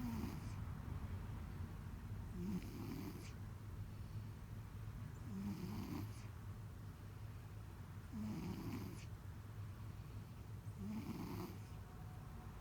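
A pet snoring loudly through its nose, each snore a short rising nasal tone with a hiss, repeating about every three seconds, five times.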